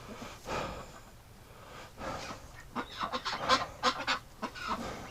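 Domestic geese honking: faint at first, then a run of short, rapid honks from about two seconds in.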